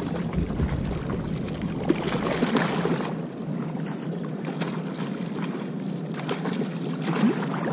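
Sea water lapping and splashing around a kayak, with small splashes from a hooked fish thrashing at the surface. Wind buffets the microphone with a low rumble that eases about three seconds in.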